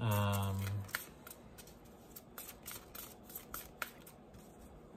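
A deck of tarot cards being shuffled by hand: a run of short, irregular clicks and snaps as the cards slide and tap against each other. A drawn-out vocal sound opens the first second.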